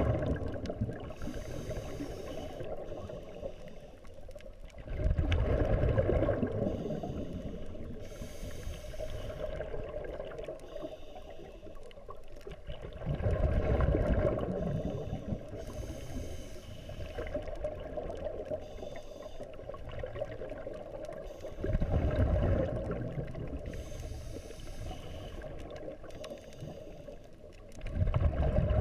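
Scuba diver breathing through a regulator underwater: a short hiss on each inhale, then a loud bubbling rush of exhaled air, about one breath every eight seconds.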